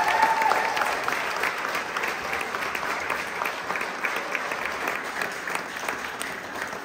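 Audience applause, many people clapping at once, loud at first and gradually fading away. The last held note of a song dies out about a second in.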